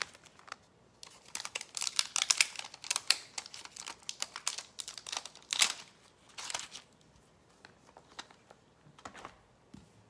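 Plastic and paper crafting supplies being handled: crinkling with quick small clicks, busiest from about one to seven seconds in, then a few faint taps.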